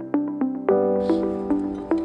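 Background music: a synthesized plucked or keyboard melody with about three notes a second.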